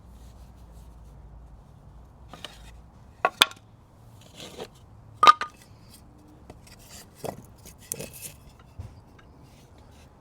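Scattered sharp clicks and taps from the metal hand tools of bonsai work, being handled and snipped. The loudest comes about five seconds in and rings briefly.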